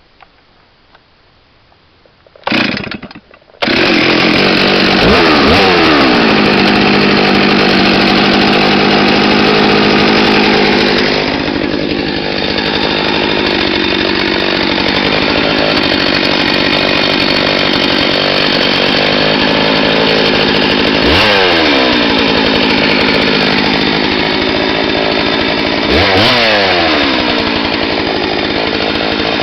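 Freshly rebuilt two-stroke chainsaw (original cylinder honed, new piston and rings) being test-run: a brief sputter about two and a half seconds in, then it starts and runs loud at high revs, with the engine speed falling away several times as the throttle is released and opened again.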